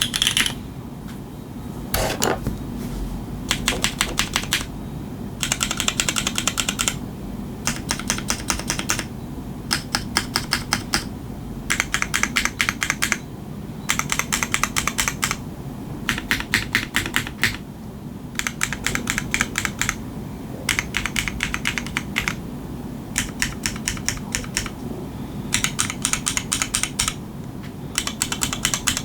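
Custom mechanical keyboard with unlubed Geon MX Black linear switches, a PEI plate and GMK keycaps being typed on in quick runs of keystrokes, each about a second long, with short pauses between. The keystrokes make a clean, clacky sound.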